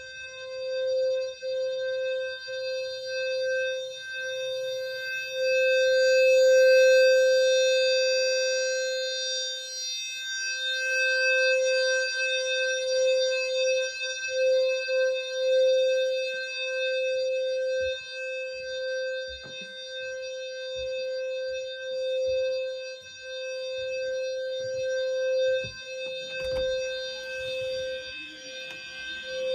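Fire alarm horn sounding one continuous steady tone that wavers a little in loudness, with a few soft knocks in the last third.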